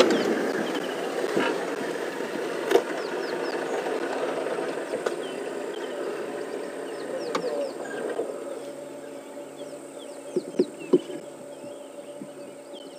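Safari vehicle driving along a rough dirt track, its engine and rattling body fading as it slows and settles, with a few sharp knocks, two of them close together about ten and a half seconds in. Small birds chirp throughout.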